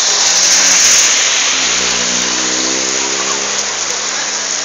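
Heavy rain pouring steadily, with a car engine running under it from about a second and a half in.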